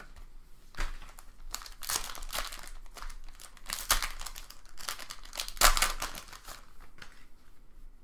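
Sports card pack wrappers crinkling and tearing as packs are opened by hand, in a series of rustling bursts, the loudest about two-thirds of the way in.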